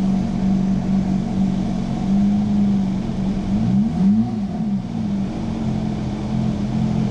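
Porsche GT3 RS flat-six engine idling, heard from inside the cabin with the air conditioning switched on. The engine's pitch briefly wavers up and back down about four seconds in.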